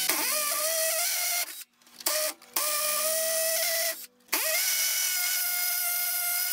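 DeWalt cordless hammer drill boring into a concrete block wall with a masonry bit. It stops and restarts a few times, spinning back up in pitch each time. The bit is stuck on a hard spot it won't drill past, which the owner jokes is 'a diamond in the wall'.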